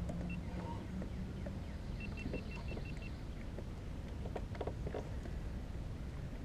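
Steady low rumble of a fishing kayak on the water, with a quick run of about seven short, evenly spaced electronic beeps at one high pitch about two seconds in, and a few light clicks and knocks later on.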